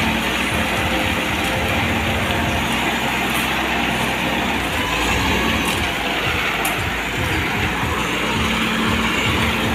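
Self-loading concrete mixer's diesel engine running steadily while the drum turns and discharges concrete down the chute.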